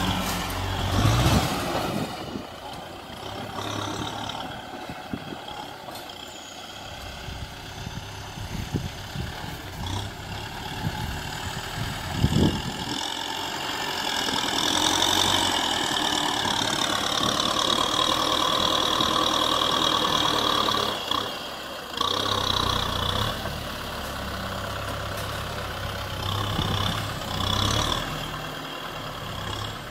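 Kubota M6040SU tractor's diesel engine working as the tractor pushes sand with its front blade. The engine note rises and falls and runs louder and higher for several seconds in the middle, with one sharp knock about twelve seconds in.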